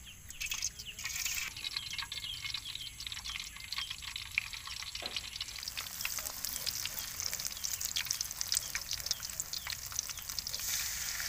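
Battered banana-stem strips frying in hot oil in a pan, a steady sizzle with fine crackling that grows denser and louder about halfway through as more pieces go into the oil.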